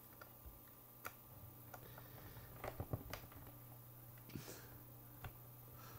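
Faint, scattered clicks and scrapes of a small screwdriver working at the screws of a metal hard-drive enclosure, screws that turn out to be stripped, over a low steady hum.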